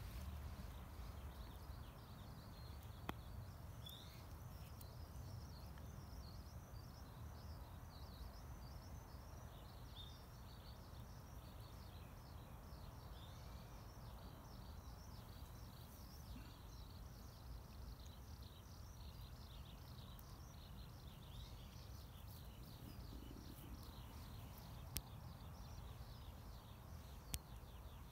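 Faint outdoor ambience: a dense run of high, rapid chirping that fades in after a couple of seconds and dies away near the end, over a low rumble, with three sharp clicks.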